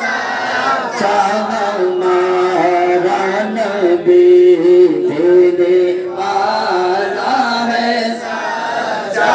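Man's voice reciting a naat into a microphone, drawing out long sung notes that bend slowly in pitch with short breaks between phrases.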